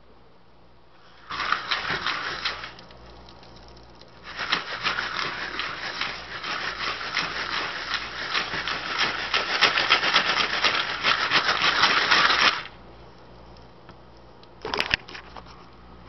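Rapid scraping rattle of a pan being worked by hand on a glass stovetop. It comes as a short burst about a second in, then a longer spell from about four seconds to near thirteen seconds, with a couple of sharp ticks near the end.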